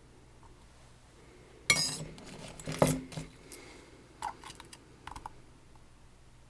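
Metal clinking and clattering of lock parts and picking tools being handled: a sharp clink about two seconds in, another a second later with light clatter between, then a few lighter clicks.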